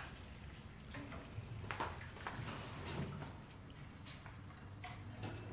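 Quiet kitchen handling sounds: a few faint clicks and light knocks of dishes at the sink and a refrigerator being opened, over a low steady hum.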